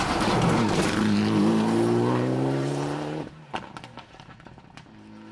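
Mitsubishi Lancer Evolution X rally car's turbocharged four-cylinder engine under hard acceleration, its pitch dipping briefly and then climbing steadily. The engine cuts off abruptly about three seconds in, leaving a much quieter stretch with a few sharp clicks and a faint engine.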